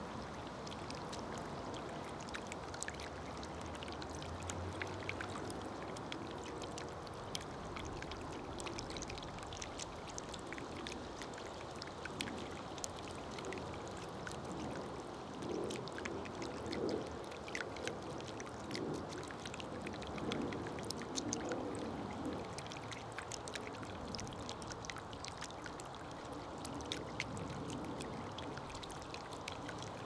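Water trickling steadily in a bird bath, with honeybees buzzing in short spells as they fly in and out about halfway through.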